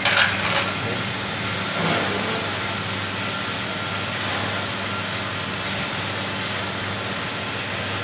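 An engine running steadily with a low, even hum. There is a short clatter right at the start and another brief knock about two seconds in.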